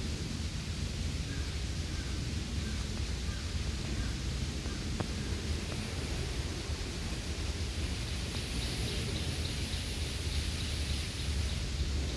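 Outdoor nature ambience: a steady low rumbling noise with a few faint bird chirps early on, and a faint rapid series of high ticks, about four a second, in the last third.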